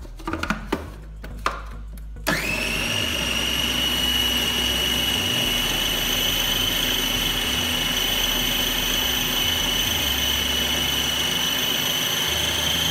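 Kenwood food processor motor starting about two seconds in, its whine climbing briefly as it spins up, then running steadily while it chops a thick chicken-and-lentil shami kabab mixture. Before it starts there are a few sharp clicks as the lid and pusher are fitted.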